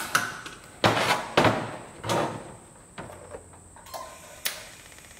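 Sharp metallic clanks and knocks, each with a short ring: a clamp and backing bar being fitted against a thin stainless steel tank. The loudest come in the first two and a half seconds, followed by a few lighter taps, the last about four and a half seconds in.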